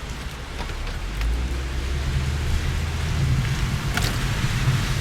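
Steady rain noise with the low hum of a car running underneath, and a single sharp tick about four seconds in.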